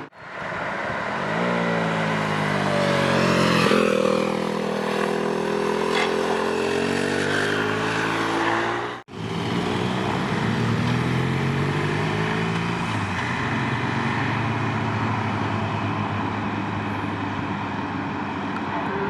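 Motorcycle engines revving and riding past, the engine pitch climbing and falling with each burst of throttle, in two clips split by a sudden cut about nine seconds in.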